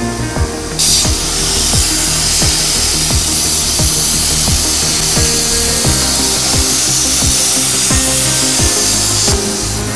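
Plasma cutting torch on a CNC pipe cutting machine hissing steadily as it cuts a hole in a round steel pipe. The hiss starts sharply about a second in and cuts off shortly before the end, over background music with a beat.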